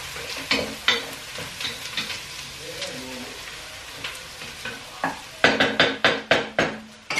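Food sizzling as it fries in a hot pot, stirred with a utensil, with a steady hiss and scattered scrapes. Near the end comes a quick run of sharp knocks, about four a second, as the utensil strikes the pot.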